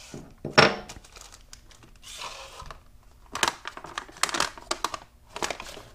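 A printed paper instruction sheet rustling and crinkling as it is held and handled, in irregular bursts that are busiest in the second half.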